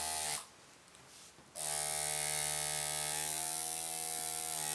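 Electric tattoo machine buzzing as it inks skin. It stops about half a second in, is silent for about a second, then starts again and runs steadily.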